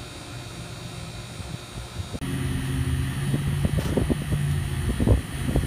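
HVAC vacuum pump running with a steady hum while evacuating the refrigerant system after the compressor change-out. About two seconds in the sound cuts to a louder steady hum with scattered knocks and clatter of handling.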